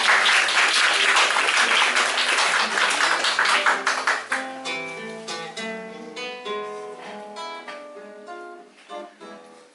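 Solo acoustic guitar playing a song introduction: about four seconds of fast, loud strumming, then single picked notes and arpeggios that grow quieter toward the end.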